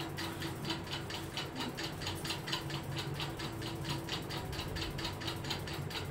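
Rapid, even clicking, about five or six clicks a second, over a steady low hum.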